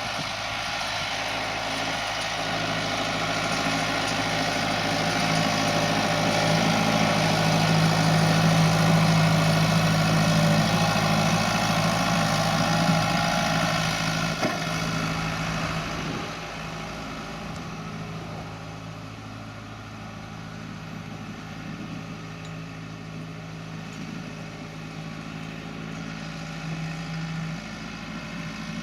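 Tractor diesel engine running steadily. It grows louder up to about a third of the way in, then falls off a little past halfway as the tractor moves away.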